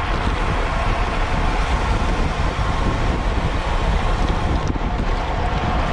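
Wind buffeting the microphone of a racing cyclist's camera at speed: a steady, deep rumble with hiss above it.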